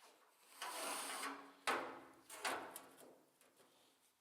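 Scraping and rubbing against the sheet metal of a snowmobile tunnel being handled, with a sharp knock about halfway through.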